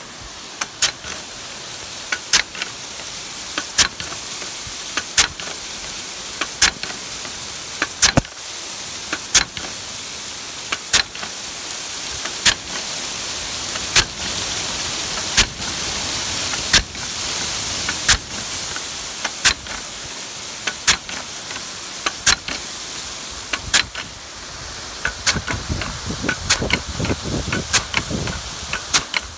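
Nelson SR150 big gun irrigation sprinkler with a 1.30-inch nozzle running under high pressure: the steady hiss of the water jet, with a sharp clack about every 1.4 seconds as the drive arm swings into the stream and snaps back, stepping the gun round. Near the end quicker, irregular clicks join in.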